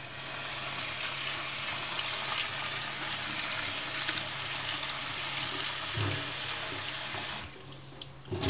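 Kitchen tap running into an enamel pot of soaked rice, the stream splashing as the grains are stirred and rinsed. The water shuts off about seven seconds in.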